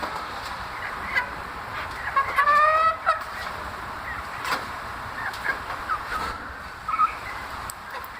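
Caged chicks calling: short, scattered high cheeps, with one longer, louder call about two and a half seconds in.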